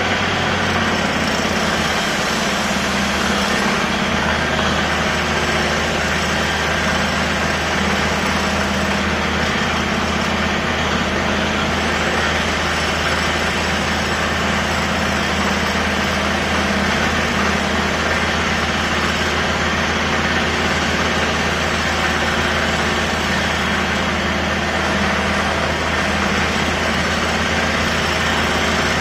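Heavy construction machinery engine running steadily, a continuous low drone under broad mechanical noise.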